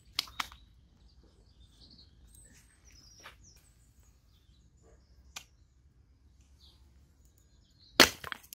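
Hatchet chopping kindling on a wooden chopping block: two sharp chops right at the start, a couple of faint knocks, and the loudest chop near the end. Faint bird calls in the background.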